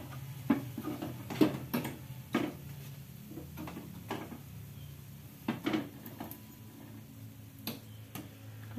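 A metal fork clinking and scraping against a metal multi-hollow wingko mould pan as the fried cakes are lifted out, with about a dozen sharp clicks at uneven intervals over a low steady hum.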